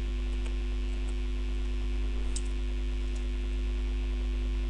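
Steady electrical mains hum picked up by the microphone, with a few faint key clicks as an address is typed.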